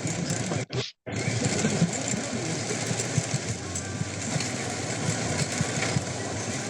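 Steady rush of heavy rain and road noise heard from inside a moving car. It drops out briefly about a second in.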